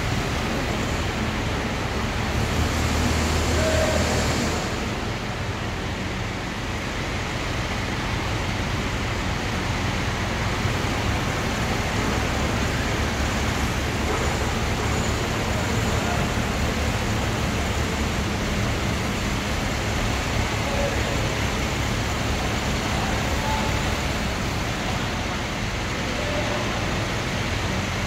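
Diesel engines of mobile cranes, an ACE pick-and-carry crane nearest, running steadily while they hold and tilt a large steel silo. The engine noise swells briefly about three seconds in.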